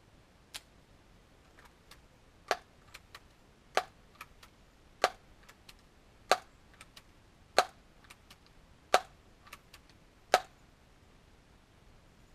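Daisy PowerLine 901 multi-pump air rifle being pumped: about seven sharp clacks, one every second and a bit, with fainter clicks in between.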